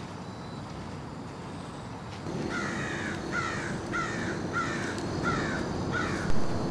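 A bird calling in the woods: a series of six short, harsh, falling calls about two-thirds of a second apart, starting about two seconds in.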